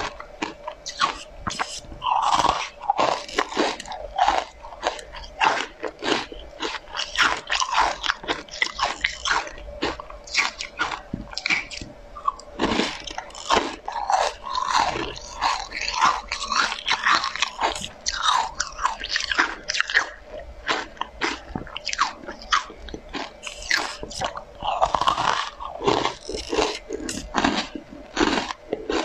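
Close-miked biting and crunching of hard pink spoon-shaped sweets coated in green powder: many sharp crackling bites and chews in quick succession, over a faint steady hum.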